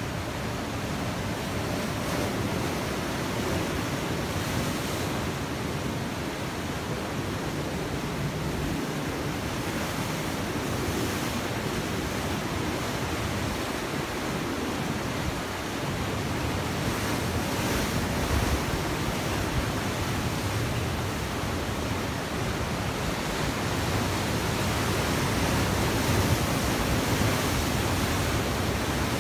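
Atlantic surf breaking over rocks: a steady rush of churning whitewater that swells louder as bigger waves break, especially in the later part.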